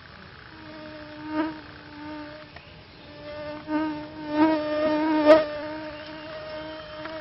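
A flying insect buzzing close to the microphone: a steady, slightly wavering hum that breaks off briefly a few seconds in and returns. A few sharp clicks sound over it, the loudest a little over five seconds in.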